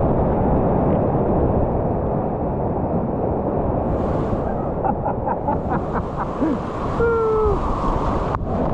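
White-water rapids rushing loudly and steadily around a kayak, heard close to the water with splashing on the camera. Late on, a quick run of short pips and then a brief pitched call with a slightly falling pitch rise above the water noise.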